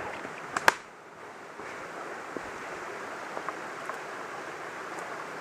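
Steady rushing of a stream running over rocks, with two sharp cracks about half a second in.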